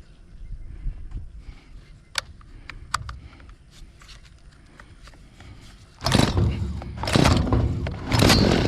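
Stihl MS 192 TC two-stroke chainsaw being pull-started: a couple of light clicks, then about six seconds in three loud pulls on the recoil starter cord, about a second apart, the engine firing on them.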